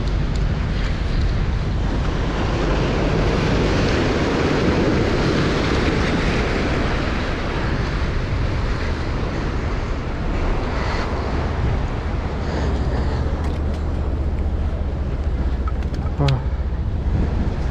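Wind buffeting the microphone over surf washing against jetty rocks, a steady rushing noise with a heavy low rumble. About 16 s in there is one brief sharp click.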